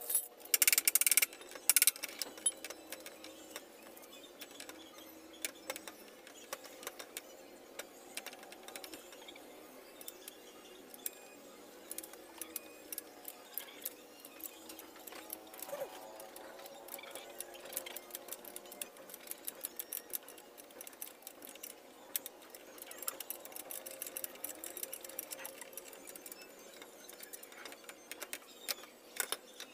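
Rapid metallic clicking and rattling of a hand tool working the mounting bolts of a Honda XRM 125's muffler as it is undone for removal, with a few louder metal clacks about a second or two in.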